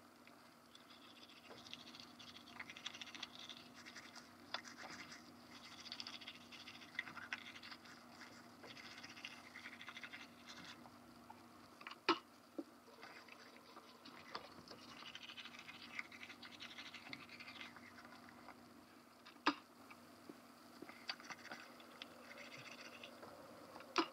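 Manual toothbrush scrubbing teeth in irregular stretches, with a low steady hum underneath. A few sharp clicks stand out, the loudest about halfway through and again later.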